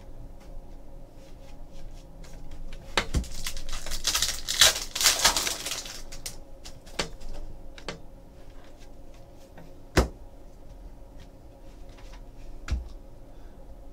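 Plastic wrapper of a 2015-16 Donruss basketball card pack crinkling as it is torn open, from about three to six seconds in. Then the cards are handled with scattered sharp clicks and taps, the sharpest about ten seconds in.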